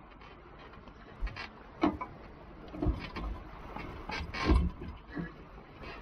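Irregular clunks and knocks of hands working the anchor gear at a sailboat's bow windlass, about half a dozen in a few seconds, with the heaviest knock late on.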